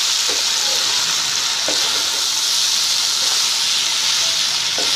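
Diced kohlrabi, potato and peas sizzling steadily in hot mustard oil as they are stir-fried with ground spices, stirred with a wooden spatula that scrapes the pan a few times.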